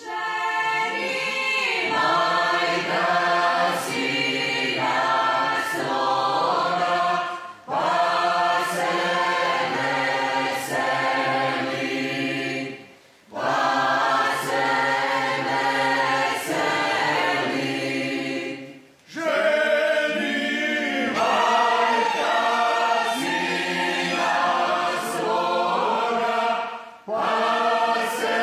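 A group of folk singers singing a Slavonian sung kolo (circle-dance song) unaccompanied, in phrases of about six seconds with short breaks between them.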